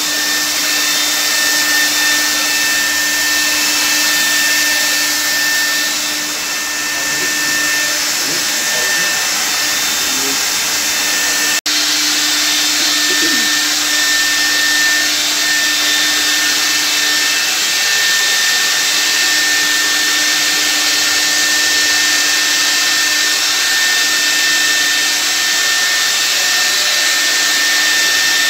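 Handheld electric ULV cold fogger running continuously, its blower motor giving a loud, steady rushing hiss with a steady hum and whine as it sprays disinfectant mist. The sound drops out for an instant about halfway through.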